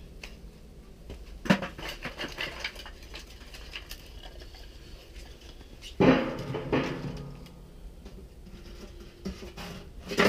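Wooden kindling sticks clattering and knocking as they are handled and set down. There are light clusters of clicks, and a louder knock with a short clatter about six seconds in.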